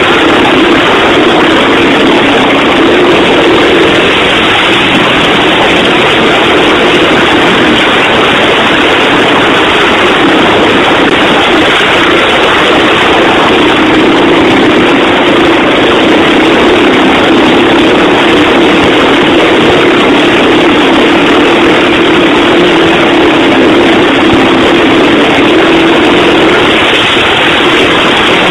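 A 2001 Honda TRX90 ATV's small engine runs steadily as it tows a Power Wheels Jeep on a rope, mixed with the toy's plastic wheels sliding over pavement and grass. It is a loud, unbroken noise that does not change.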